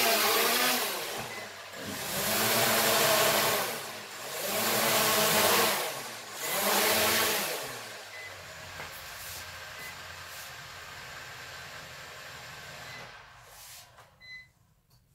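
Hubsan H501S quadcopter's brushless motors and propellers whirring in flight, the pitch rising and falling in several surges as the throttle is worked. The drone then comes down and its motors run on more quietly and steadily for a few seconds before stopping. A short beep sounds near the end.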